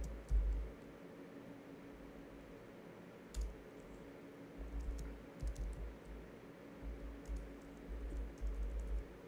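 Typing on a computer keyboard: irregular keystroke clicks and thuds, over a steady low hum.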